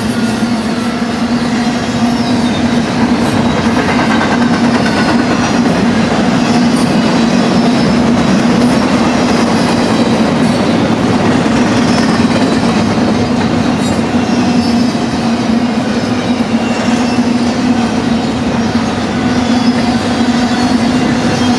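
Double-stack container well cars of a BNSF intermodal freight train rolling past, their steel wheels giving a loud, steady rumble on the rails with a constant low hum. Faint high-pitched wheel squeals come and go.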